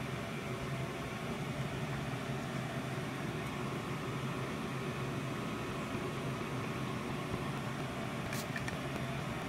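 Hot-air heat gun running steadily, a constant fan hum with a rush of air, as it shrinks heat-shrink tubing over freshly soldered wires. A couple of faint small clicks come near the end.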